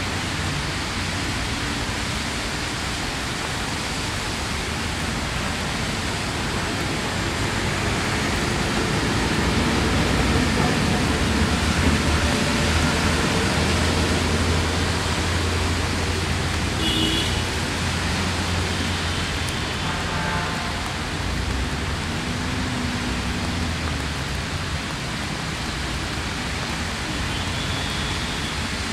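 Steady rain falling on wet ground and puddles, an even hiss, with a low rumble underneath that swells for a few seconds in the middle.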